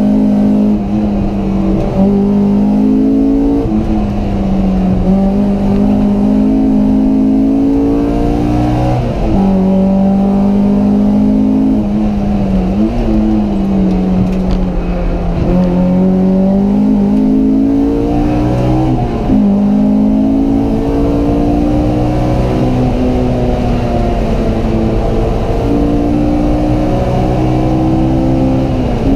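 Honda Civic Type-R engine heard from inside the cabin under hard track driving. Its pitch climbs steadily, then drops sharply at each gear change or lift, several times over.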